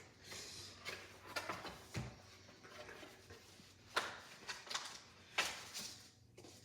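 Cardboard box and packaging being opened and handled: scattered rustling and scraping with a few sharp clicks, the loudest about four and five and a half seconds in.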